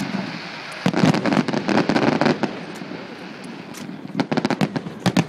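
Display fireworks going off in quick volleys of sharp bangs and crackles. The volleys start about a second in, ease off around the middle and pick up again near the end.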